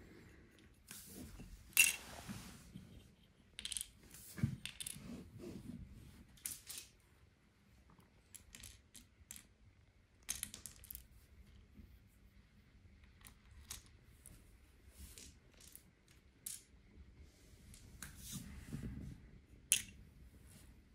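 Brio wooden toy trains and play pieces being handled, giving scattered light clicks and knocks, with a sharper clack about two seconds in and another near the end.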